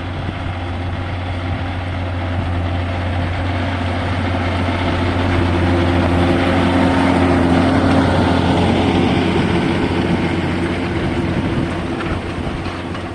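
John Deere 6150R tractor's diesel engine working steadily as it pulls a six-furrow reversible plough, growing louder to a peak about eight seconds in and then fading as the tractor passes.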